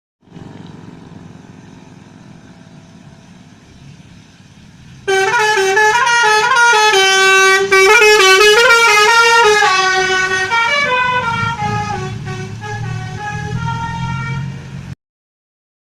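Bus 'telolet' basuri horn playing a tune: several loud tones stepping up and down in pitch, starting suddenly about five seconds in over the running bus engine. The tune thins out near the end, the engine grows louder underneath, and it cuts off abruptly.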